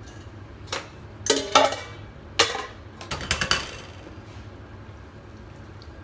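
Stainless steel mixing bowls and a wire whisk clanking together: a handful of sharp, ringing metal knocks in the first three and a half seconds.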